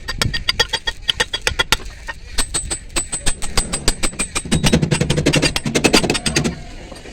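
Rapid, even knocking, about eight knocks a second, with a louder, lower rattle joining in from about four and a half to six and a half seconds in.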